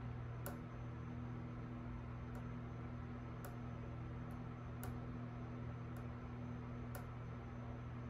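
Faint, sharp ticks, about one every second or so, as a pointed tool is pressed against the soldered pins of a replacement PS5 HDMI port one by one to test that each holds to the board. A steady low hum runs underneath.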